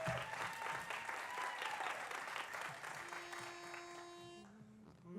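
Audience applauding, the clapping dying away over about four seconds. Near the end a single steady note sounds for about a second and a half, followed briefly by a lower one.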